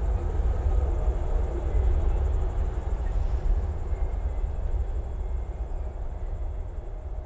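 Night ambience: crickets chirping steadily in a fast, high-pitched pulse over a low rumble, the whole fading gradually toward the end.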